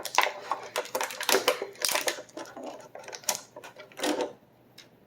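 Plastic toy packaging being handled and pulled apart: a rapid, irregular run of clicks and crinkles that stops about four seconds in.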